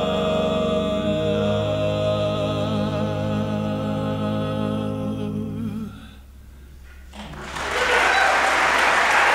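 Barbershop quartet of four men's voices, unaccompanied, holding the ringing final chord of their song for about six seconds, with a change in the lower voices about a second in, before releasing. After about a second of quiet the audience breaks into applause.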